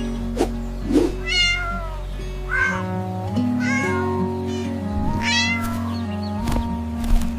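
Four short cat meows over steady background music, with a few sharp clicks scattered between them.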